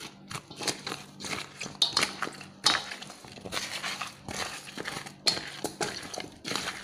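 Sugar-covered slices of firm, half-ripe papaya being stirred and turned over in a bowl: gritty crunching and scraping of the sugar grains and fruit, in irregular strokes.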